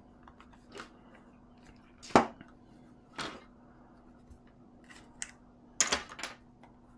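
Scattered sharp clicks and knocks of hard plastic parts of a toy RC car being handled and worked apart, the loudest about two seconds in and a quick cluster near six seconds.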